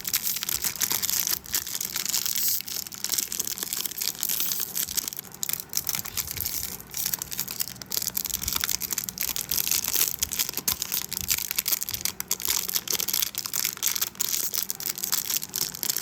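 Plastic packaging crinkling and crackling continuously as it is handled and pulled at by hand, with many small clicks.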